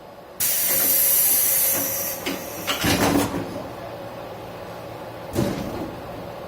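JR Shikoku 121 series electric train: a sudden loud compressed-air hiss lasting about a second and a half, followed by a burst of clattering knocks. A single sharp thump comes about five seconds in, over a steady low rumble.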